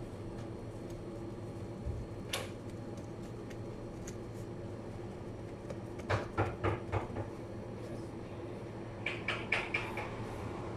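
Light knocks and clatter of things handled at a kitchen prep counter: one sharp click about two seconds in, a quick run of five or so knocks around six seconds in, and another cluster near the end. Under it runs a steady hum.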